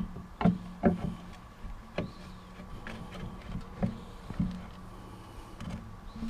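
Clunks and knocks of metal on metal as the steel tongue of a homemade garbage-can carrier is worked into a side-by-side's hitch receiver, about six knocks, the two loudest within the first second, over a low steady hum.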